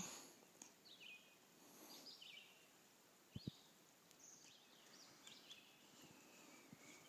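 Faint bird chirps: short, high notes repeating every half second or so over a quiet background. Two soft knocks come close together about three and a half seconds in.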